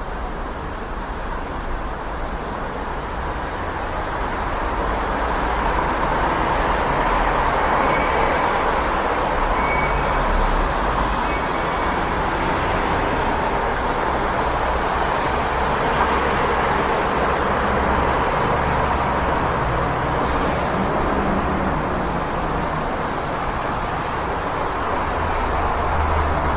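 City street traffic: a steady wash of passing cars, buses and trucks with low engine rumble, swelling slightly a few seconds in, and a few faint high squeaks.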